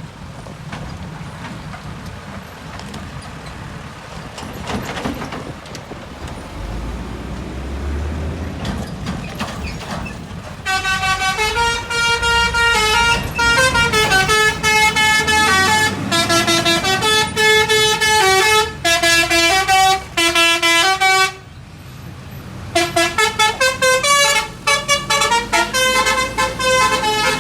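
A bus's engine rumble grows as it approaches, then its telolet (basuri) musical air horn plays a quick tune of stepped notes. The horn breaks off briefly and plays another tune near the end.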